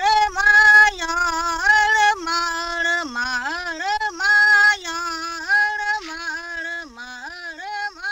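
A woman singing a slow melody alone, without accompaniment, holding each note and sliding between them.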